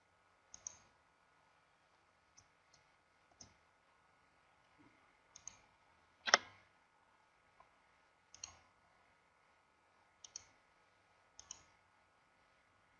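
Computer mouse clicks, about ten of them at irregular intervals, the loudest about six seconds in.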